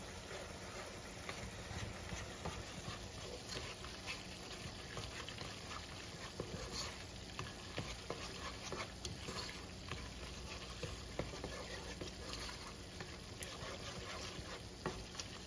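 Plastic spoon stirring and scraping macaroni and cheese around a nonstick pot, with many small irregular clicks, over a steady low sizzle from ground beef simmering in taco seasoning in a skillet.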